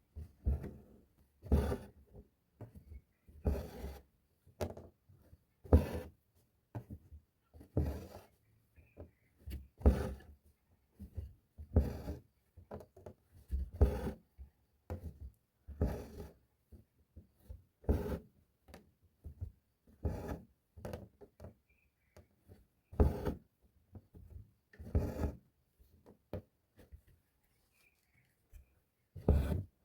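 Embroidery thread being drawn through fabric by hand: a short rubbing swish roughly every two seconds, with softer scratches of the needle in between.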